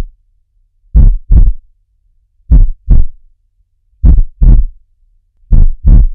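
Heartbeat sound effect: slow, loud double thumps (lub-dub), repeating about every one and a half seconds, four beats in all.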